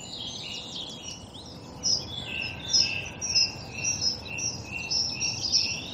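Songbirds singing, one of them repeating a short, high chirping phrase over and over from about two seconds in.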